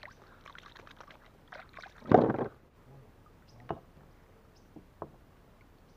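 Kayak paddle strokes through calm water: a run of small splashes, the loudest splash about two seconds in, and a couple of short sharp knocks later.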